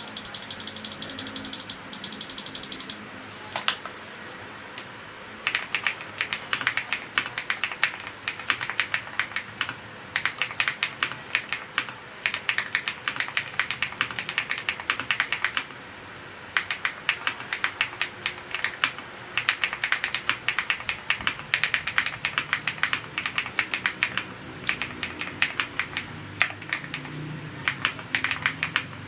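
Typing on an AULA F87 Pro V2 mechanical keyboard with linear switches and Cherry-profile PBT keycaps: fast runs of thocky keystrokes in bursts of a few seconds with short pauses between them. A rapid, even ticking comes first, for about three seconds.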